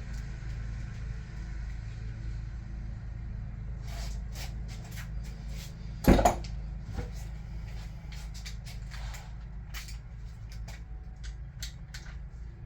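Hand tools working the camshaft cap bolts on a Toyota 2JZ cylinder head: scattered metal clicks, with one loud clunk about six seconds in, over a steady low hum.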